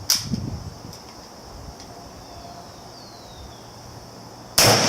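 Mosin-Nagant M44 carbine firing a single 7.62x54R round near the end: a sudden loud report with a long tail. Before it, a steady high insect chirring and a sharp click at the start.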